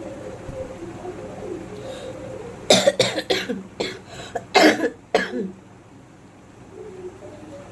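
A woman coughing in a fit of several harsh coughs about three seconds in, then a second run of coughs about a second later, from a chest cold with fever.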